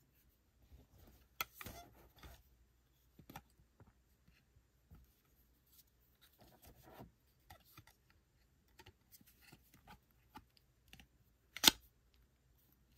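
Handling noise from a GoPro Hero 12 and its plastic mod housing being fitted together by hand: scattered small plastic clicks and rubbing, with one loud sharp click near the end.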